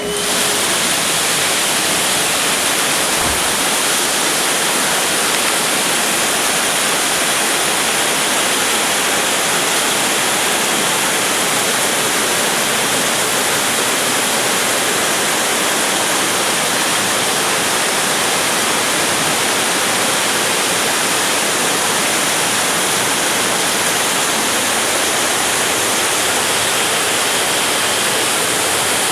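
Heavy rain pouring down in a steady, dense hiss close to the microphone.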